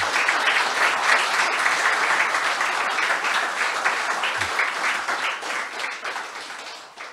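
Audience applauding, with the applause dying away near the end.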